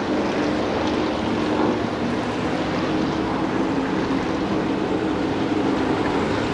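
Engines of a pack of Groundpounders race cars running steadily at low speed behind the pace car, a continuous blended drone with no single car standing out.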